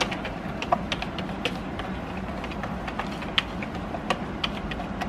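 Wire whisk stirring blue cornmeal into water in a bowl, its wires clicking irregularly against the bowl's side, over a steady low hum.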